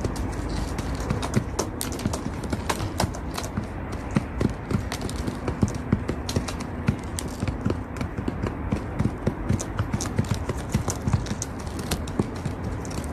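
Pigeon pecking on a hard patio floor: quick, irregular taps, several a second, over a steady low background noise.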